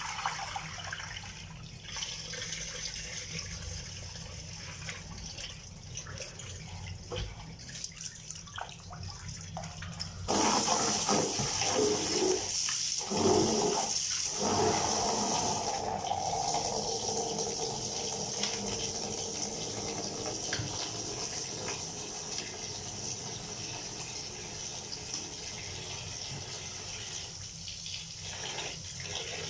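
Dishes being washed by hand in a plastic basin: light splashing and small clinks. About ten seconds in, a louder rush of water starts as the basin is emptied and the tap is left running steadily into it.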